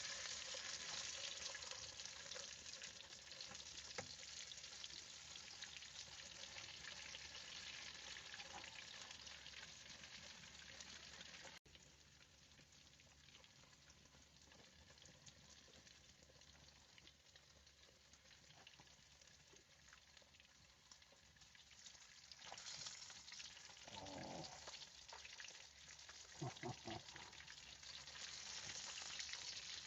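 Food frying, a steady crackling sizzle. It turns quieter after a sudden cut about twelve seconds in, and a couple of short knocking sounds come near the end.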